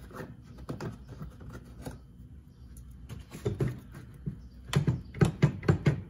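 Plastic windshield cowl panel being tugged and worked loose, giving light clicks and knocks. There is a louder run of about seven quick knocks near the end.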